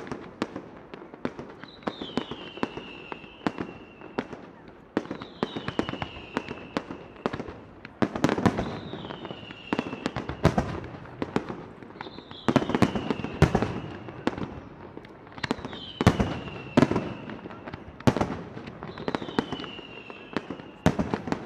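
Aerial fireworks display: shells bursting in a steady run of sharp bangs and crackles, several a second, with heavier clusters of bursts about every four seconds. A high tone falling in pitch recurs about every three and a half seconds.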